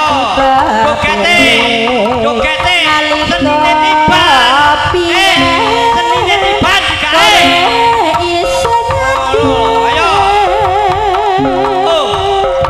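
Live Javanese jaranan music played over a sound system: hand drums and held gamelan tones under a wavering, vibrato-laden lead melody.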